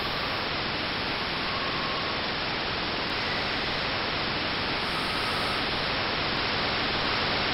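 Steady static hiss, an even white-noise rush with a few faint short tones in it, growing slightly louder toward the end.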